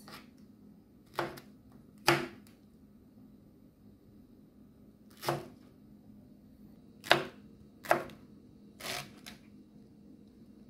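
Kitchen knife dicing pineapple on a plastic cutting board: several separate chops knocking on the board at uneven intervals, with long gaps between some of them.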